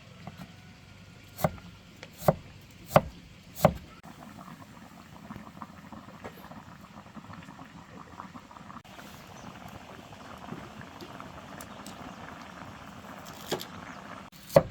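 Four sharp chops, like a knife on a cutting board, then a steady crackling sizzle of food frying in a pan, with another sharp knock near the end.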